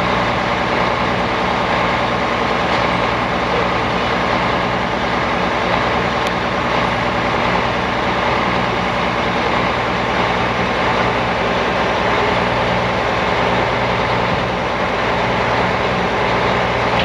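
Heavy diesel engine of a recovery truck running steadily at a constant speed, driving the crane's hydraulics while the crane lifts an overturned tipper lorry.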